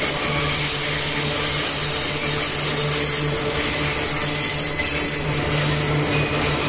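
Loaded iron-ore gondola wagons rolling past, their steel wheels grinding on the rails with a steady low hum.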